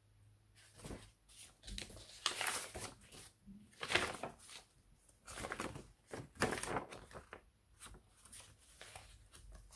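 Sheets of dry tea-dyed paper rustling as they are handled, flipped over and laid down by hand, in a string of separate swishes about one a second.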